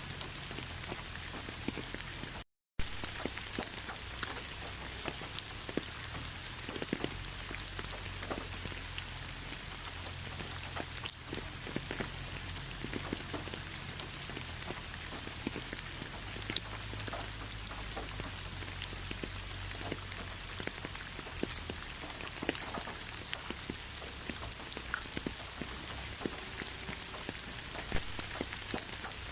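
Steady rainfall, with many individual drops ticking over an even hiss. There is a brief cut to silence about two and a half seconds in.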